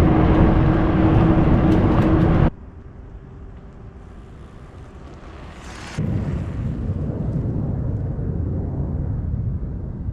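Wind rushing over the microphone while riding a bicycle. It drops off abruptly about two and a half seconds in and comes back about six seconds in.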